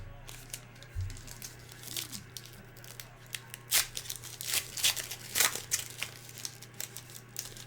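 Trading card pack wrapper and cards being handled: a string of short, irregular crinkles, tears and card-sliding scrapes, busiest in the middle of the stretch.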